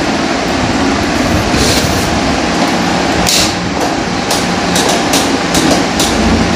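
Irregular metallic clicks and scrapes from working a jammed scooter ignition lock, over steady background noise.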